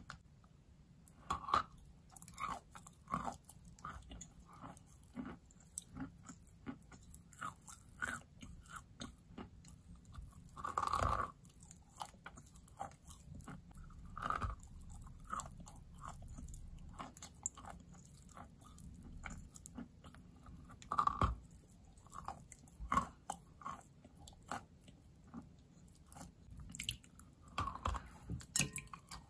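Close-miked biting and chewing of a large lump of wet white chalk, in irregular crunches. A longer, louder crunch comes about a third of the way in, and sharp loud bites come about two-thirds through and near the end.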